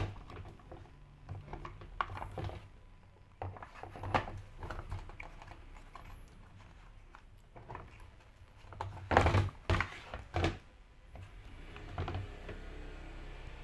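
Irregular knocks, taps and clatter of tools and parts being handled while a washing machine is taken apart, loudest in a quick cluster of knocks about nine to ten seconds in, over a low steady hum.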